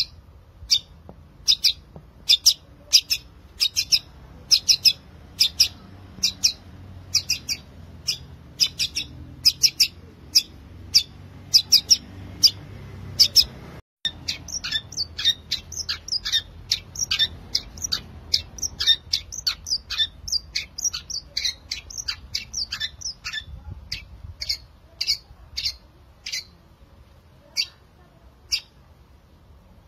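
Long-tailed shrike (cendet) in full song, a run of short, sharp, high notes about two a second. After a brief break about halfway, the notes come faster and denser in a chattering run, then thin out near the end.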